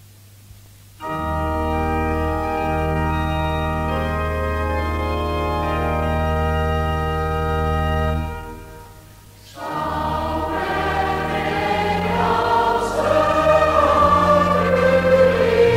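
Low record hiss with a small click, then a church organ plays a steady held introduction for about seven seconds. After a short fade a congregation comes in singing a psalm in the slow non-rhythmic style, in long equal notes, with the organ accompanying.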